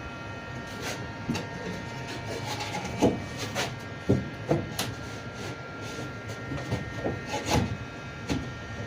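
Irregular knocks and clunks of a van's cabin partition panel being worked loose, over a steady high hum.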